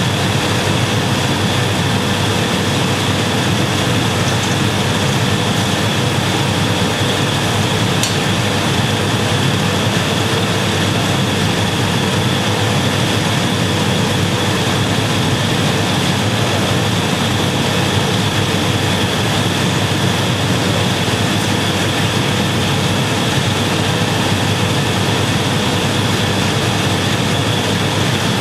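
Steady roar of a glassblowing workshop's furnaces and air blowers, with a steady high whine running through it. A single faint click about eight seconds in.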